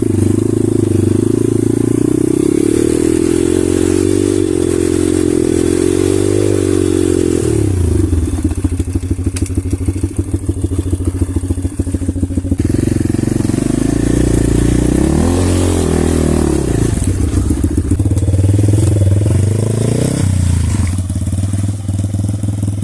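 Off-road pit bike engine running under varying throttle, its revs climbing and dropping several times. About eight seconds in it falls to a low, lumpy chug for a few seconds, then it revs up again.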